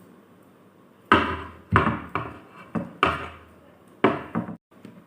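About seven sharp, irregularly spaced knocks, each with a short ringing decay, as the tied iron-rod and wooden-stick assembly is knocked and handled on a hard surface.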